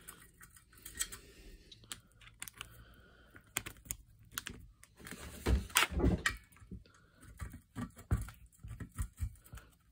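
Light metallic clicks and taps of hand tools: a T30 Torx bit being fitted into its holder and set into a screw on a brush cutter engine's muffler cover. A few louder knocks come about halfway through.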